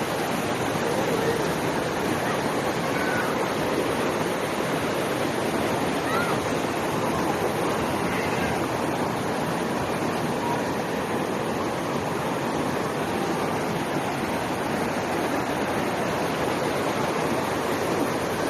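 Waterfall, water pouring and rushing in a steady, even roar.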